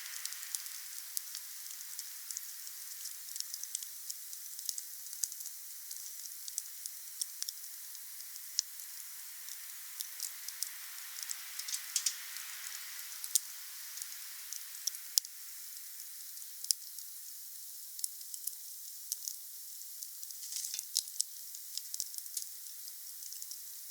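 Wood fire burning, with many sharp, irregular crackles and pops over a steady hiss; the pops bunch together a little past the twenty-second mark.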